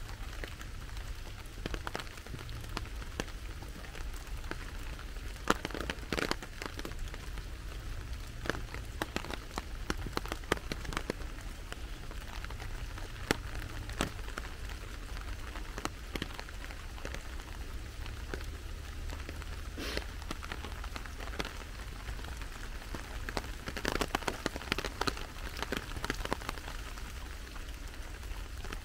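Steady rain falling, with many scattered sharp taps of single drops striking nearby surfaces.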